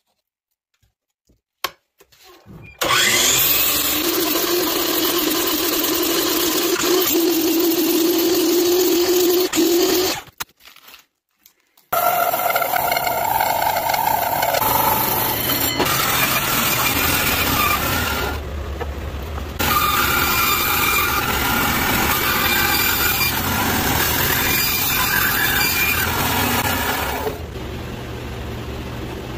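Workshop power tools one after another: a miter saw running and cutting through a slice of log for several seconds. After a brief silence, a drill press bores into the wood slice with a hole saw.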